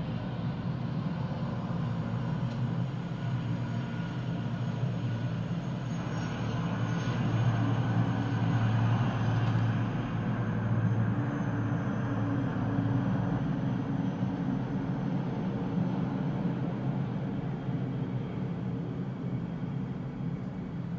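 Military helicopters flying overhead: a steady low rotor-and-engine drone that swells a little about a third of the way in, with a faint thin high whine over it.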